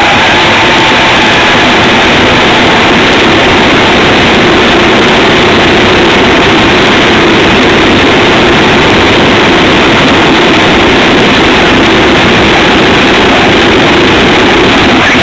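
Radio-controlled car's motor running steadily under a loud, distorted wash of noise.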